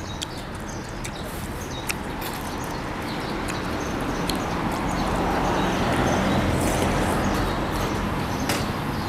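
A vehicle passes: its noise swells to a peak about six seconds in and then fades, with a low engine hum under the loudest part. A few sharp clicks stand out.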